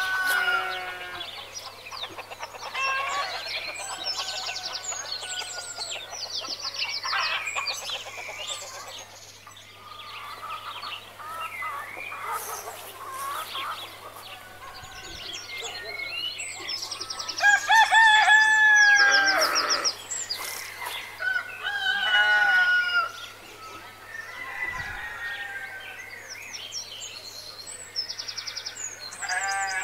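Farmyard sounds: hens clucking and a rooster crowing, with small birds chirping and trilling. The loudest moment is a long crow about two-thirds of the way through.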